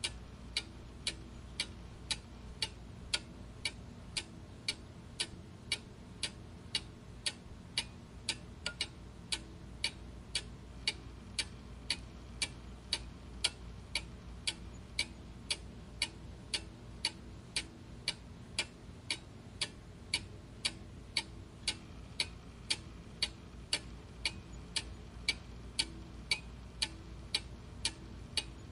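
Clock ticking steadily, about two sharp ticks a second.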